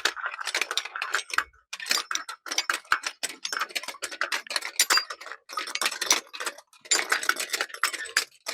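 Rapid ticking in repeated bursts of about a second each, with short breaks between them. This is a foley prop being worked to stand in for a bicycle's freewheel clicking as it coasts.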